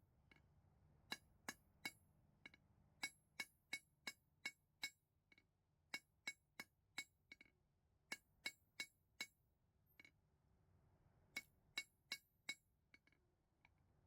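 Blacksmith's hammer striking a small flare of spring steel on an anvil, in quick runs of several ringing blows with short pauses between runs.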